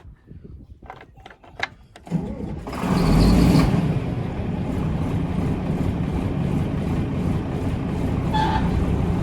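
A few light metal clicks, then an engine cranks and starts about two seconds in, revs briefly, and settles into steady running.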